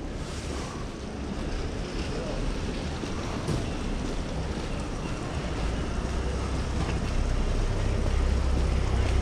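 Wet street ambience: a steady hiss of traffic on wet pavement with a low wind rumble on the microphone, growing louder toward the end.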